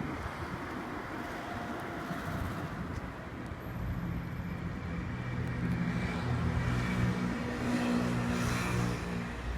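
NS modernized double-deck DDM electric train approaching, its motor hum and rolling noise growing louder. Several steady low tones join in about four seconds in.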